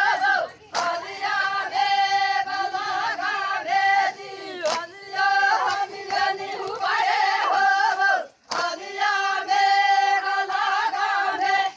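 Voices singing an Adivasi folk song in phrases about four seconds long, with short breaks between them.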